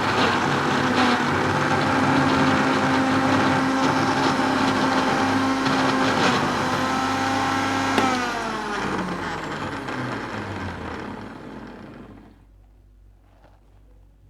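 Electric blender motor running at a steady pitch, blending egg and cooking oil into mayonnaise. About eight seconds in it is switched off and winds down, its whine falling in pitch until it stops a few seconds later.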